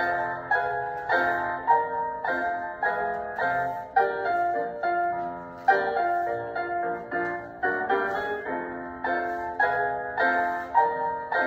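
Piano music accompanying a ballet barre exercise: chords struck in a steady, even rhythm, about two a second, each ringing and fading before the next.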